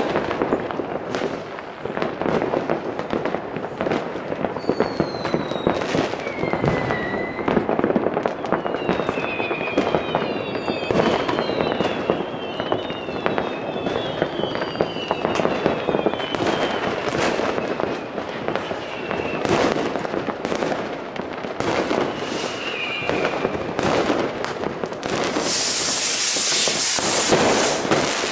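New Year's Eve fireworks: a dense, continuous string of bangs and crackles from firecrackers and rockets, with several whistles falling in pitch through the middle. Near the end comes a loud rushing hiss lasting about two seconds.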